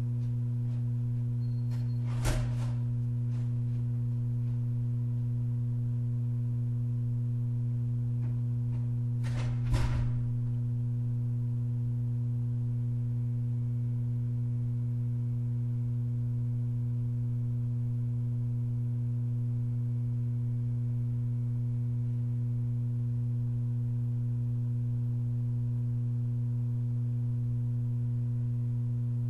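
Steady electrical hum with a stack of even overtones, broken by two brief sharp knocks about two and ten seconds in.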